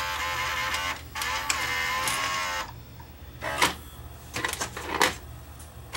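Sony SLV-R1000 S-VHS VCR's front-loader mechanism whirring in two runs of about a second each, then a few sharp clicks. The loader is not working, which the owner takes for a cracked or slipping gear in the front loader.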